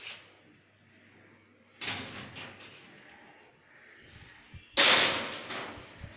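Hinged glass doors in aluminium frames of a showcase cabinet being swung shut by hand, banging closed twice: a lighter bang about two seconds in and a loud one near the end, each followed by a brief rattle.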